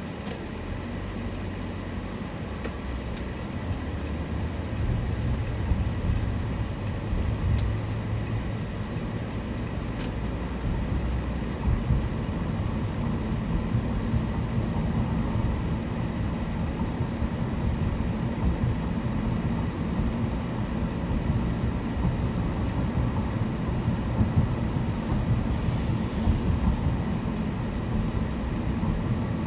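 Car driving on city streets: a steady rumble of engine and road noise that grows louder about four seconds in.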